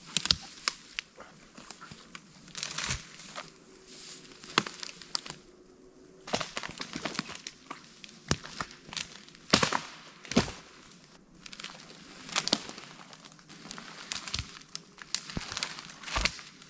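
Dry leaves, twigs and brushwood rustling and crackling on the forest floor as debris is gathered and cleared away by hand, with irregular sharp snaps and cracks throughout.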